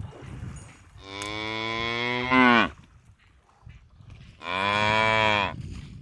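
Water buffalo lowing: two long, low moos. The first lasts about a second and a half and ends with a louder call that falls in pitch. The second, shorter one comes about two seconds later.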